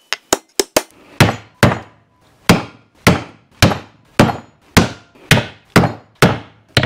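A hammer striking a wooden board laid across a ring gear, driving the tight-fitting ring gear down onto the differential carrier. It opens with a few quick light taps, then settles into steady blows about two a second, each a sharp knock with a short ring.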